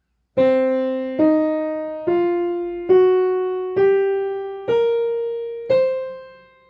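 Piano playing the C blues scale upward one note at a time: seven evenly spaced notes, C, E-flat, F, F-sharp, G, B-flat and top C, the last left to ring and fade.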